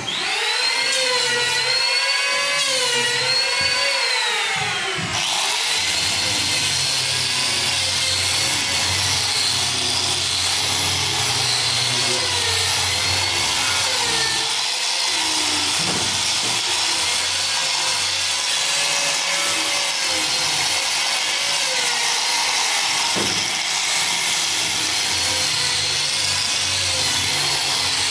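Handheld angle grinder with a sanding disc sanding wooden boards: a steady, rough grinding noise of the spinning disc on the wood. For about the first five seconds a whine rises and falls in pitch, then gives way to the even sanding noise.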